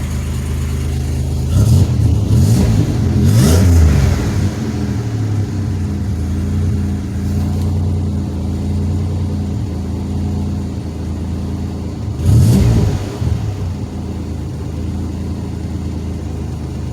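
2007 Pontiac Grand Prix engine idling steadily, freshly running after a week of cranking without starting. It is revved in short blips a couple of seconds in and again about twelve seconds in.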